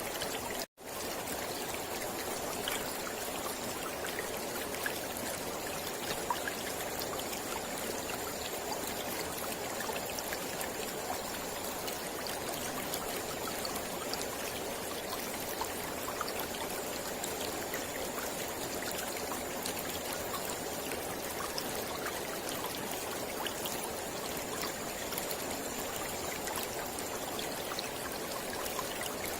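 Mountain river flowing steadily. The sound drops out completely for a split second less than a second in.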